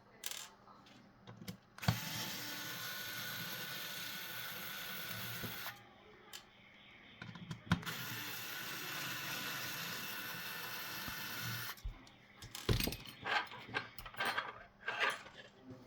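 Small electric screwdriver running in two steady whirring runs of about four seconds each, backing out the screws of a car radio head unit's casing. Scattered light clicks and knocks follow near the end as the parts are handled.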